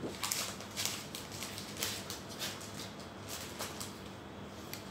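Soft, irregular rustling and light clicks of things being handled on a table, a string of brief crinkly sounds.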